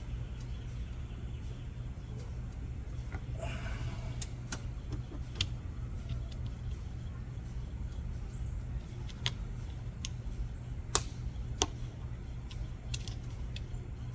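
Scattered small metallic clicks and ticks, with a short scrape about three and a half seconds in, as a steel wire lock is worked into the pin groove of a forged aluminium piston. A steady low hum runs underneath.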